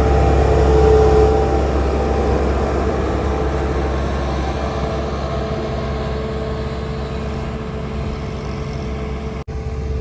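Diesel engine of a JCB earth-moving machine running steadily under load, loudest about a second in and then easing slightly. It cuts out for an instant just before the end.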